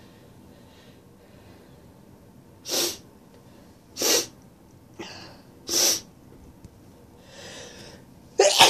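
A stuffed-up nose sniffling: three short, sharp sniffs a second or two apart, with softer breathing between, then a loud sneeze bursts out near the end.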